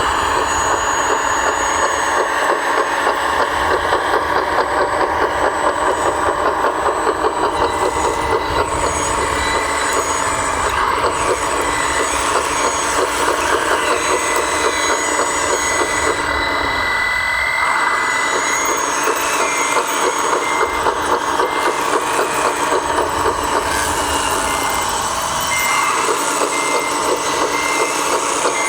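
Simulated diesel engine sound from a 1/14-scale RC construction model's sound module, running with a steady throb. From about two-thirds of the way in, a reversing beeper sounds in regular beeps over it.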